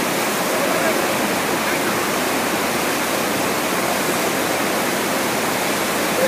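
Steady rush of water across a FlowRider surf simulator, its fast sheet of water spraying up the ramp under the riders' boards.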